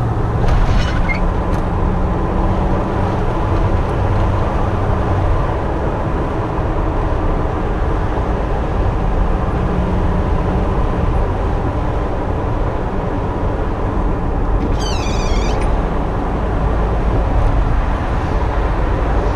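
Hummer H2 V8 and tyre noise while driving, heard with the windows down, steady with no distinct grinding or metal-on-metal scrape; the owner no longer hears the front-end noise he was checking for. A brief high chirp about fifteen seconds in.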